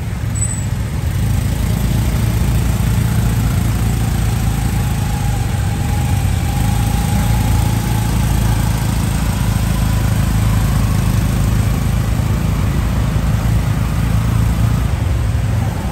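A tuk-tuk's engine running steadily under way in city traffic, with road and traffic noise around the open passenger cab. A faint higher whine rises and fades about a third of the way in.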